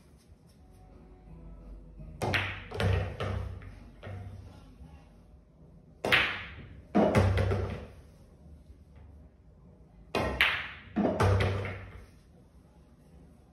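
Pool shots on an eight-ball table, three in a row: the cue striking the cue ball, then two or three sharp clacks of balls hitting each other and object balls dropping into the pockets, each shot fading within about a second. Background music plays underneath.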